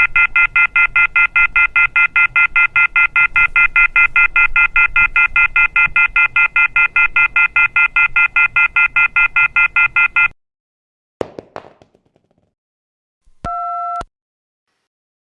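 Electronic telephone ringer sounding a rapid high trill, about five pulses a second, that stops abruptly about ten seconds in. A few clicks follow, then one short beep.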